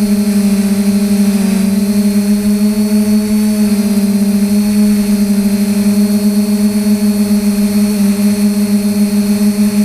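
Quadcopter's brushless motors (DJI 2212) spinning 9450 propellers in steady flight, heard from on board: a constant, loud buzzing hum over a hiss. The pitch wavers slightly a few times.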